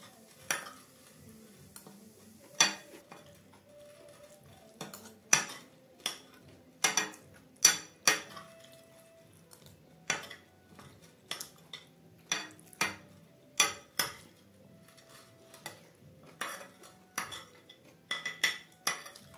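A steel spoon clinking and scraping against a plate while scooping up black chickpea chaat: irregular sharp clinks, some in quick pairs, roughly one every second.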